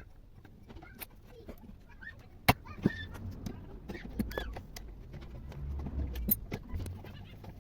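Metal hand tools and fittings clinking and knocking irregularly as a refrigerator compressor is taken out, with two sharp knocks that stand out and a few short squeaks.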